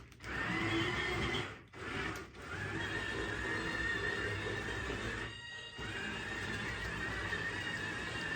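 Homemade MSE-6 mouse droid replica's sound card playing its looped electronic warbling sound effects through a small speaker, in three long stretches with short breaks about two seconds and five and a half seconds in.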